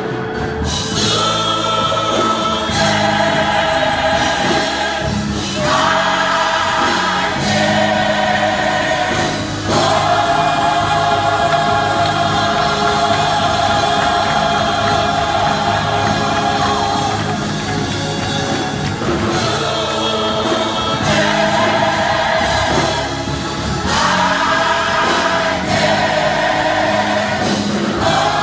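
Gospel choir singing, phrase after phrase of long held chords.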